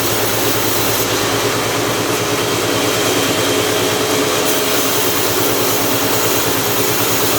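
Log-sawing machine running steadily while splitting a large jengkol log: a continuous loud mechanical drone with a steady hum, without pauses.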